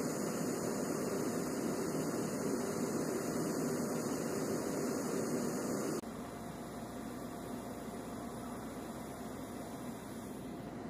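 Steady hum and hiss of running machinery on an airfield flight line, with no distinct events. It drops suddenly in level about six seconds in and runs on more quietly.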